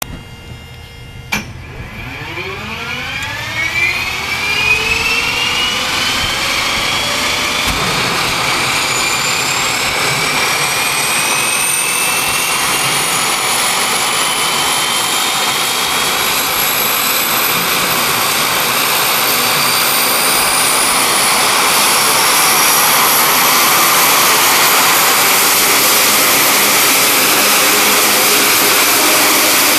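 Garrett TPE331-6 turboprop starting: a click about a second in, then a whine that rises steeply in pitch and loudness as the engine spools up. It keeps climbing more slowly and settles into a steady, loud high-pitched whine with the propeller turning.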